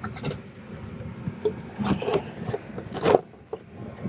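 Cardboard and plastic packaging rubbing and scraping as a diecast model car is worked partly out of its box, in a few short scuffs; the two strongest come about two and three seconds in.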